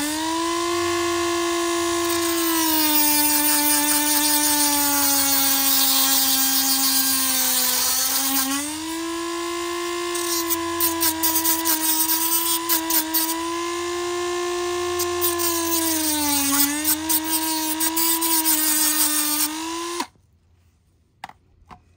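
Dremel rotary tool with a cutting disc running at high speed, a steady whine, grinding a metal battery terminal flat. The pitch sags twice as the disc bites, with scratchy grinding noise over the second half, and the tool shuts off about 20 seconds in.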